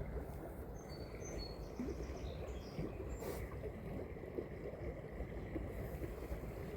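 Steady low rush of creek water, with a few short, high bird chirps about one to three seconds in and a single faint click a little after three seconds.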